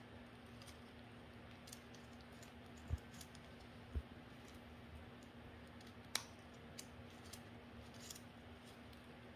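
Small scissors snipping paper with faint, scattered clicks. Two short low thumps come about three and four seconds in, and a sharper click about six seconds in, over a faint steady hum.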